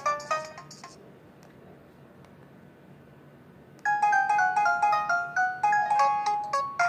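Phone ringtones playing on a ZTE Z222: one electronic melody stops about a second in, and after a pause of nearly three seconds with faint hiss the next one starts with a fast run of short, bright notes.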